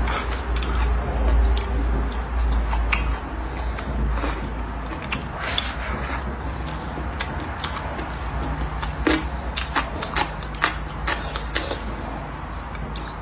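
Close-miked chewing and wet lip-smacking as braised pork belly and vegetables are eaten, with many short mouth clicks and a steady low hum underneath.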